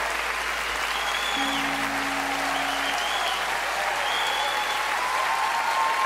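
Concert audience applauding and cheering with scattered whistles, while a few guitar notes ring out near the middle. The sound cuts off suddenly at the end.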